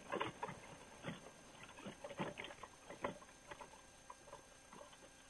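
Faint, irregular rustling and crackling from a paraglider wing and its lines settling onto the paramotor trike after landing, with the engine off. The crackles are busiest in the first three seconds, then thin out.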